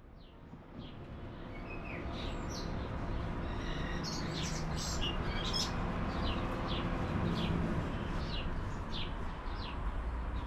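Small birds chirping: many short, high, falling chirps over a steady background noise that fades in over the first couple of seconds.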